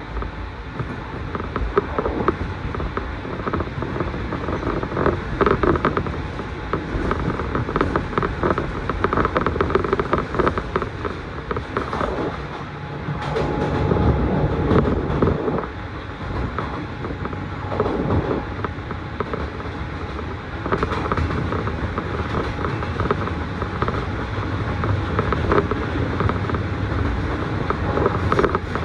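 Electric train running along the line, heard from inside the passenger car: a steady rumble of wheels on rail with irregular knocks, rattles and creaks from the car body.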